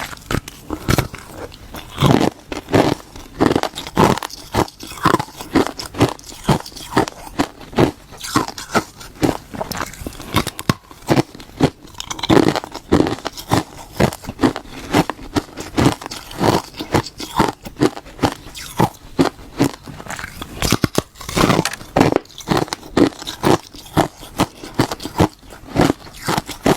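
Close-miked crunching of hard ice being bitten and chewed: a steady run of sharp, crisp crunches, a few each second.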